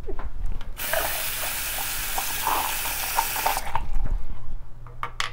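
Water tap running into a sink: it comes on about a second in, runs steadily for about three seconds and is shut off abruptly, followed by a few light knocks of handling.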